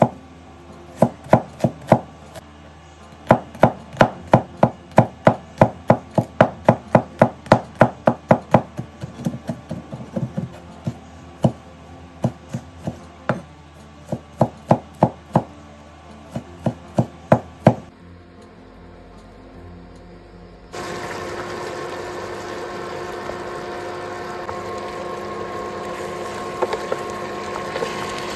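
A cleaver-style kitchen knife chopping red onion and tomato on a wooden cutting board: quick, even strikes, about three to four a second, that thin out about nine seconds in and stop at about eighteen seconds. A few seconds later pork and pumpkin sizzle steadily as they fry in a pan.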